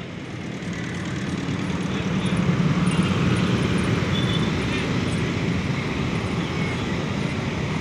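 Dense stop-and-go road traffic of motorcycles, cars and buses, with motorcycle engines passing close by. It grows louder about two seconds in and then holds steady.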